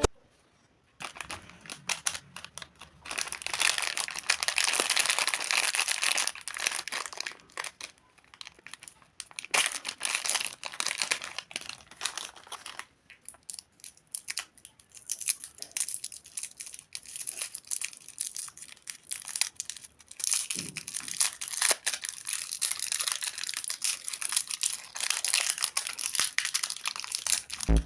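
Plastic candy and chocolate wrappers being crinkled and torn open by hand: irregular crackling with longer bouts of rustling.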